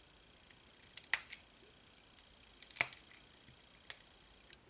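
A few sharp plastic clicks from a floppy cube puzzle, spaced a second or more apart, as fingers pry at its centre cap to get at the tension screw.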